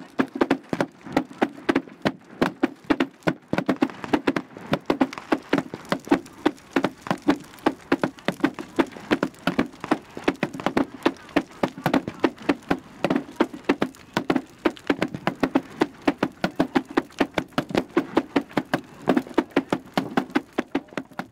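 Wooden threshing flails beating on a wooden plank in a fast, steady rhythm of sharp knocks, roughly five a second.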